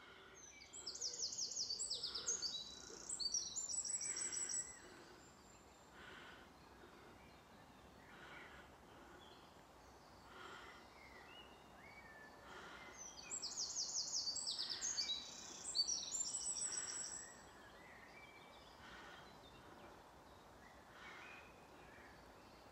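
A songbird sings two long bouts of rapid, high trilled phrases, the first about a second in and the second about thirteen seconds in, with fainter calls of other birds in between.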